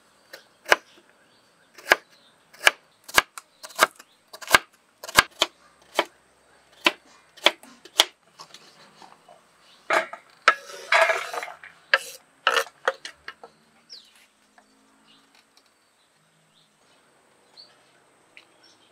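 Large kitchen knife chopping carrot sticks into cubes on a wooden chopping board, a sharp knock with each cut, about one or two a second. About ten seconds in comes a longer scraping rattle as the diced carrot is slid into an enamel plate, followed by a few more knocks.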